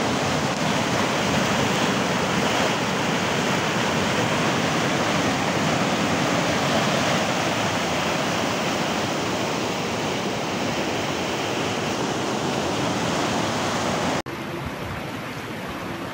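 Muddy floodwater rushing in a fast torrent: a steady, even rush of water. About 14 seconds in it cuts off abruptly, giving way to a quieter steady noise.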